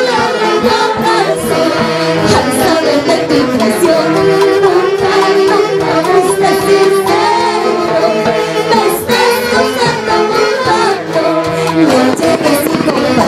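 Live Andean folk orchestra playing a song, saxophones in the lead over harp and drums, with a woman singing.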